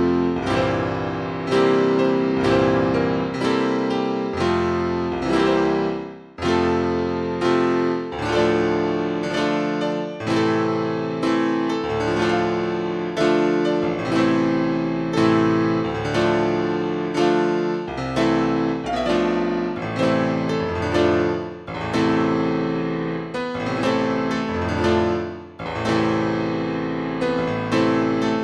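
Solo piano music, with chords struck about once a second.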